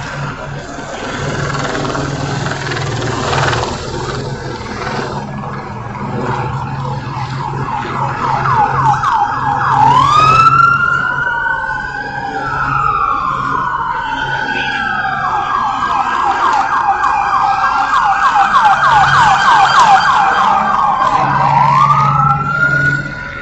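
Police car sirens: from about eight seconds in, a fast yelp and then slow rising and falling wails, two or more sirens overlapping. A steady low hum runs underneath.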